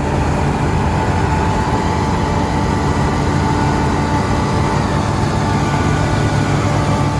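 Combine harvester running steadily under load: a loud, constant engine rumble with a steady machine whine over it.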